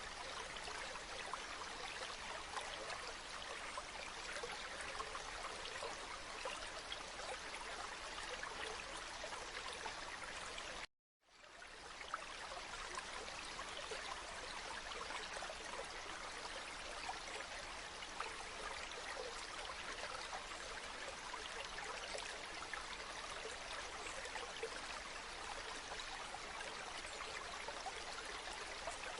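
River water flowing and babbling steadily over stones, a continuous rush with many small splashes. About eleven seconds in the sound cuts out completely for a moment, then fades back in.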